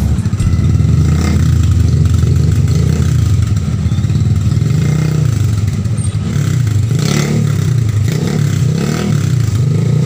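Rusi TC150's freshly overhauled single-cylinder four-stroke engine running, revved up and eased back again several times in waves.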